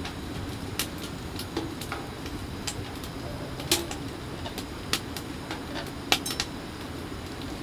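Scattered light clicks and knocks at irregular intervals, a few with a short metallic ring, over a steady low rumble.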